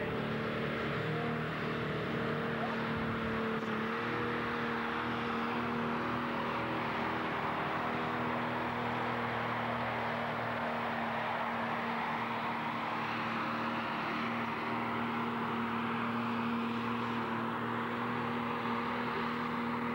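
Diesel engine of a super-standard-class pulling tractor running at full throttle under load while it drags the pulling sled, held at a steady high pitch for the whole pull.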